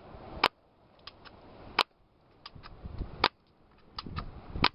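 Airsoft gun firing four shots at a steady pace, about one every one and a half seconds, each a sharp crack. Fainter pairs of ticks fall between the shots.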